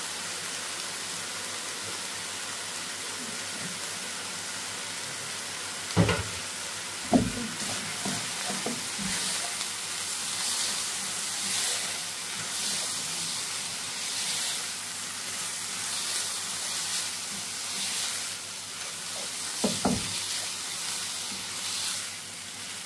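Chicken mince sizzling in a frying pan over high heat as its moisture cooks off, stirred and scraped with a silicone spatula. A few sharp knocks of the spatula against the pan, about six, seven and twenty seconds in.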